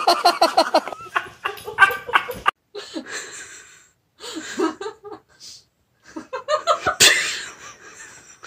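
A person laughing in quick repeated bursts for about two and a half seconds, then quieter, scattered laughs and breathy sounds, with a sharp hissy burst about seven seconds in.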